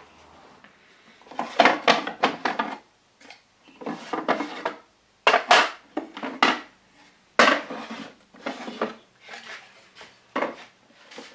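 Metal tools and small hardware clinking and clattering against wooden furniture, in several short bursts of handling noise.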